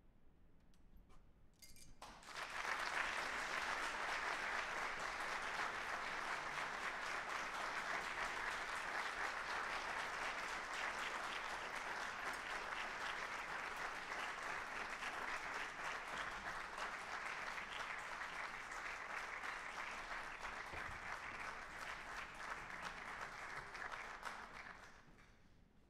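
Audience applauding: a few scattered claps, then full applause breaks out about two seconds in, holds steady, and fades away near the end.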